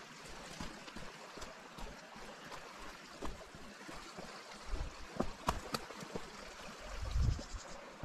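Footsteps on a rainforest walking track, a steady run of short scuffs and crunches, over the constant rush of a nearby stream. A dull low bump sounds just past seven seconds in.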